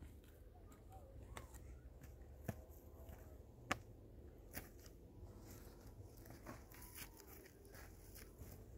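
Faint footsteps on bare rock: a few sharp clicks and scuffs over a low, quiet background.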